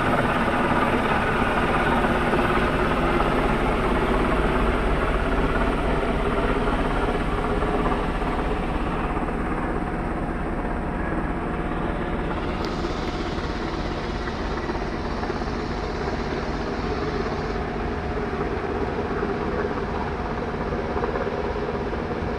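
Black Hawk-type military helicopter flying overhead, its rotor and engine noise steady and loud, growing somewhat fainter after about eight seconds as it moves off.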